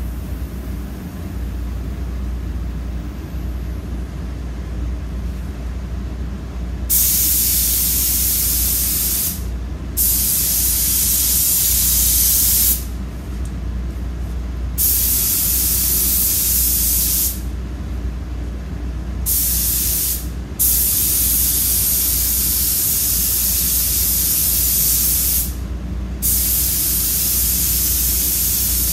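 Compressed-air paint spray gun spraying a truck fender: a loud, steady hiss of atomizing air that switches on and off as the trigger is pulled for about six passes, starting about a quarter of the way in. A steady low hum runs underneath throughout.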